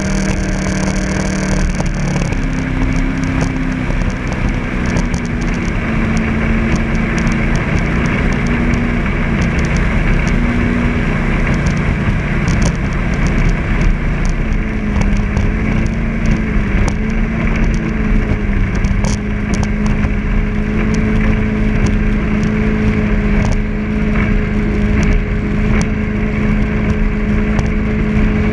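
Jet boat engine running under way, its pitch stepping up and wavering over roughly the first ten seconds as the throttle changes, then holding a steady drone from about eighteen seconds in, over a constant rushing noise.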